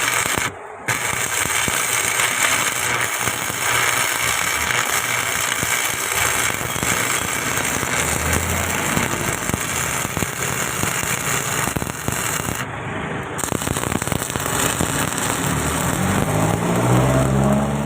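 Electric arc welding on a steel vehicle chassis, a dense steady crackle that breaks off briefly twice as the arc stops and restarts. Near the end a low droning rises in pitch underneath it.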